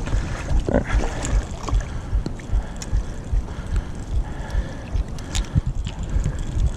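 Wind buffeting the microphone in uneven low gusts, over the wash of river water along the bank, with a few sharp clicks.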